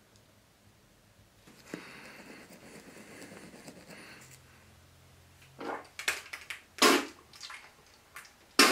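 A person brushing their teeth, a steady scratchy scrubbing for a few seconds, then spitting toothpaste into a bathroom sink several times in short, sharp spits.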